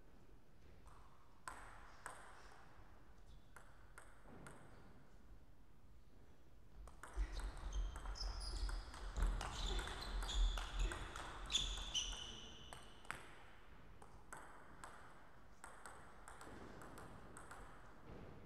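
Table tennis ball clicking sharply off rackets and table in quick succession through a rally, from about seven to thirteen seconds in, each hit with a short ringing ping. A few single ball bounces come before and after the rally.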